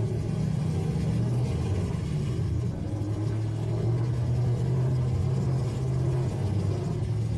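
Pickup truck engines running in a demolition derby, a steady low rumble with no sharp crashes.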